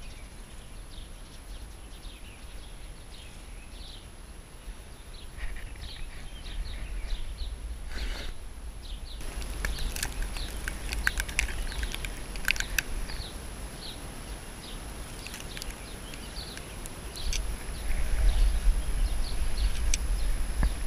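Small birds chirping and singing, over wind rumbling on the microphone that gets louder near the end. A few sharp clicks come about halfway through.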